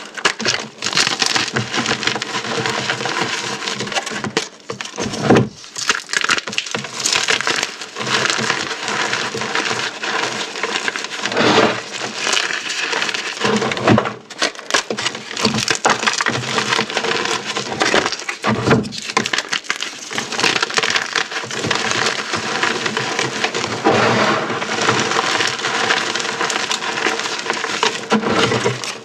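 Dense, continuous crunching and crackling of dried orbeez hydrogel beads and chalk being crushed, with brief pauses about four seconds in and again halfway through.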